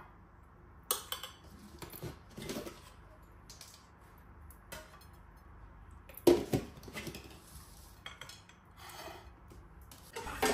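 Steel serving spoon clinking and scraping against a ceramic plate and bowl while food is served. Scattered light knocks, with the loudest about six seconds in.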